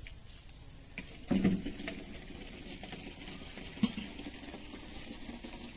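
Footsteps on a wet, muddy dirt path, with a few irregular soft knocks; the loudest is a thud about a second and a half in, and a sharp click comes near four seconds.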